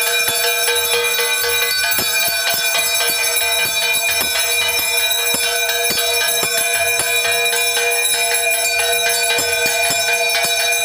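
Hanging temple bell rung by hand over and over for evening aarti. Its strikes, a few a second, run together into a continuous ringing.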